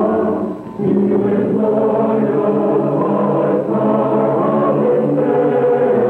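Closing music of a choir singing held chords, with a brief dip about half a second in.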